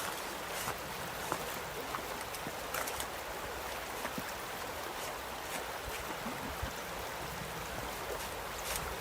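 River water flowing steadily, with small splashes scattered throughout.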